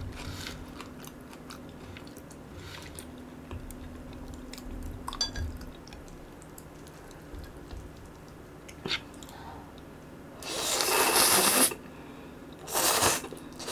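Close-miked eating sounds: soft chewing and crunching of raw green onion and potato, then about ten seconds in, a long loud slurp of Buldak fire noodles followed by a shorter second slurp.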